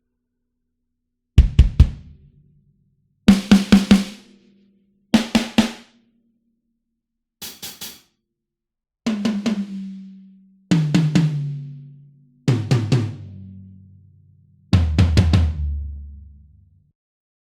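A sampled acoustic drum kit from the Gospel EZX library for EZdrummer 3, auditioned one drum at a time: short groups of three or four quick strikes with gaps of silence between them. The first groups are kick and snare hits and one brighter, cymbal-like group. The last four are ringing toms that step down in pitch from the high tom to the floor tom.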